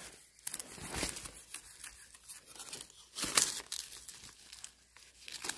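A knife hacking and prying a young bamboo shoot loose at the base of the clump, in a series of irregular crunching, tearing cuts. Dry leaf litter rustles along with them. The loudest sharp crack comes about three and a half seconds in, as the shoot breaks free.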